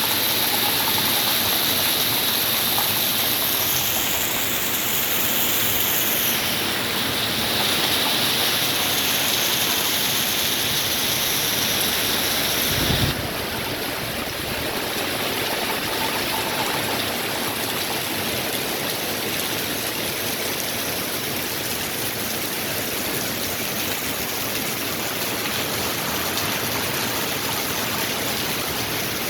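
Heavy rain pouring steadily. For the first half a high hiss sits above the rain; it cuts off suddenly about thirteen seconds in, with a brief low thump.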